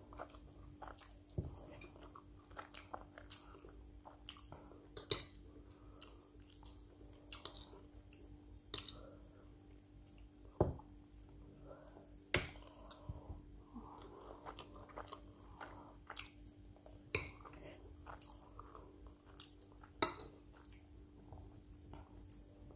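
Close-up chewing and mouth smacking as a woman eats forkfuls of white rice and stew, with sharp, irregular clicks scattered throughout and a faint steady hum beneath.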